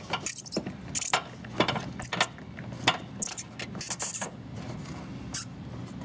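Metallic clicks and short hisses of shop compressed air as a leak-down tester's hose fitting is taken off and its regulator adjusted to re-zero the gauge.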